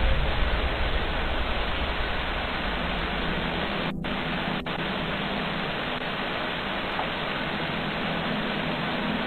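Steady static hiss from a low-quality recording, with a faint low hum under it. It cuts out for an instant twice, about four seconds in.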